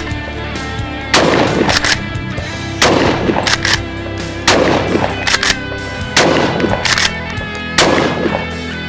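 Five shots from a Sulun Arms Tac-12 12-gauge straight-pull shotgun, about one every 1.7 seconds. Each shot is followed within half a second by a quick double clack of the straight-pull action being cycled by hand. Background music plays underneath.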